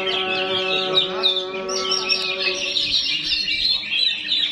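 A caged songbird singing a rapid, continuous run of high chirps and trills. A steady held lower tone with overtones sounds under it for the first two and a half seconds, then stops.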